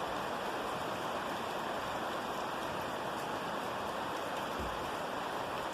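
Steady hiss of rain falling, even throughout, with no thunder or other distinct sounds.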